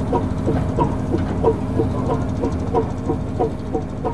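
Single-cylinder diesel engine of a Marshall Field Marshall tractor running with a slow, even beat of about three firing strokes a second, getting a little quieter near the end.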